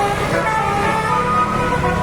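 Basuri musical horn on a large vehicle playing a tune in stepping notes, over the low rumble of the engine running.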